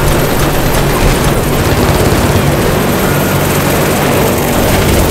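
Steady, loud helicopter engine and rotor noise.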